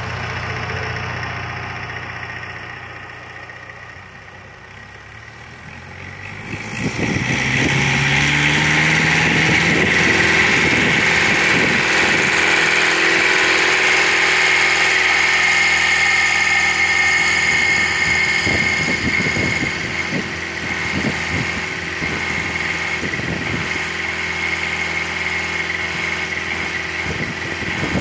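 Vermeer RTX450 riding trencher's 50 hp engine running at low speed, then revving up about seven seconds in and holding at high speed while the machine digs. A steady high whine and occasional knocks run over the engine at full throttle.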